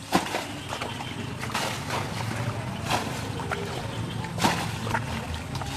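Water splashing as it is scooped and thrown out of a shallow muddy pool with buckets, about half a dozen splashes at uneven intervals, the loudest just after the start.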